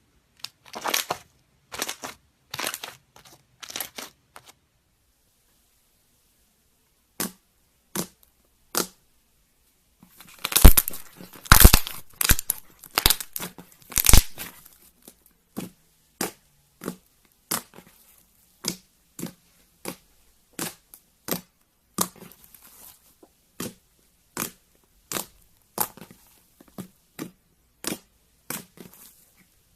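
Slime being squeezed and stretched by hand, giving short sharp crackles and pops about once a second, with a dense burst of louder crackling about ten to fifteen seconds in.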